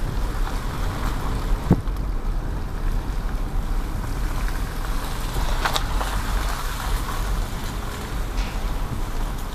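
Car cabin noise while driving slowly: a steady low rumble of engine and tyres, with two light knocks.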